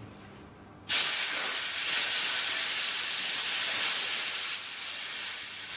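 High-pressure air hissing out through the opened pressure relief screw of a 300 bar (4500 psi) PCP air compressor, bleeding the pressure from the fill hose after filling a cylinder. The hiss starts suddenly about a second in and carries on steadily, slowly easing.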